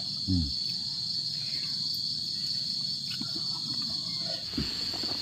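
Insects chirring in a steady, high-pitched, pulsing chorus.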